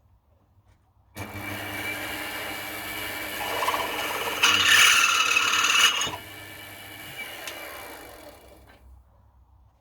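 Mini milling machine's motor starting suddenly and running with a steady whine. It is louder and harsher for about a second and a half in the middle, then drops back and winds down to a stop.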